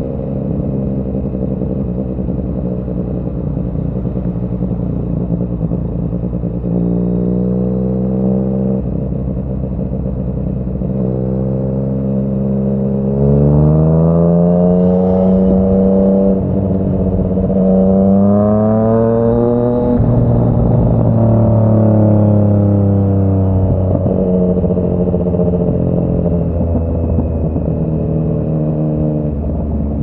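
Yamaha MT-09's three-cylinder engine through a Yoshimura R55 slip-on exhaust, heard while riding. The engine note steps up in pitch a few times as the revs build, climbs hardest just past the middle, then drops back in steps as it eases off.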